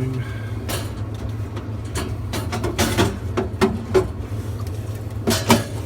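Drink cans being loaded into a vending machine's can column: a series of irregular knocks and clinks of the cans against the metal column, some ringing briefly, over a steady low hum.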